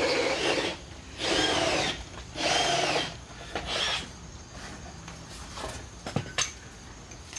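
A power drill run in several short bursts, each about half a second to a second long, its motor speeding up and slowing down. After that come only a few light knocks and clicks.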